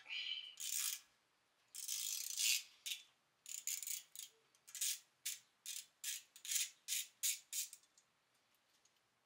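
Hand tool working on a car's rear disc brake: a few longer scraping strokes, then a quick run of about a dozen short strokes, roughly two to three a second, stopping near the end.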